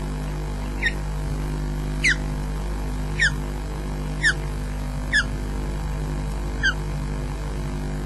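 Osprey giving a series of six short, sharply falling whistled calls, roughly a second apart, over a steady low hum and hiss from the nest webcam's microphone.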